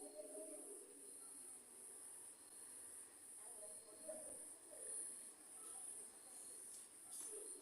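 Crickets chirping: a high-pitched, steady pulsing trill, about two pulses a second, faint at night.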